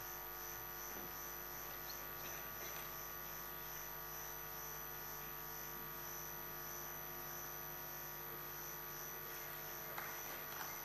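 Steady electrical hum made of several constant tones over faint room tone, unchanging throughout.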